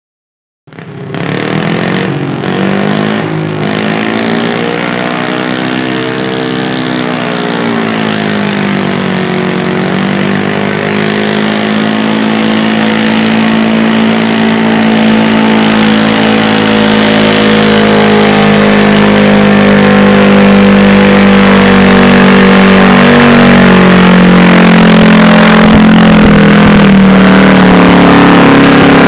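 Modified-class 16 hp garden tractor engine running hard under load during a pull. Its pitch rises and then sags over the first ten seconds, then holds steady as it slowly grows louder.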